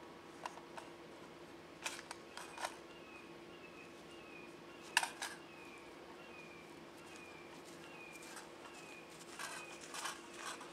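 Quiet metallic clicks and clacks of a Diamondback DB15 AR-15 rifle being handled while it is unloaded, with the sharpest clack about five seconds in and a quicker run of clicks near the end.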